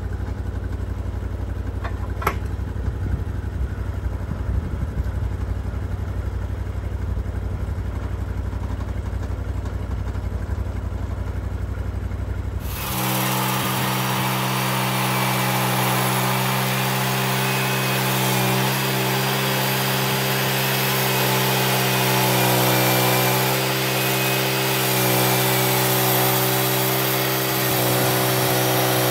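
Log Father LF 2236 portable band sawmill: its engine runs at low speed with a low rumble, then about 13 seconds in it is throttled up and the band blade cuts steadily through a large eastern white pine log, a slab cut taken two inches at a time.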